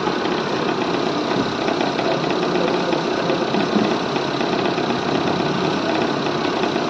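Hyundai Santro Xing engine running, heard close up at the crankshaft pulley, with a repeating 'dug dug dug' knock: the main crankshaft pulley has play because its bolt has worked loose.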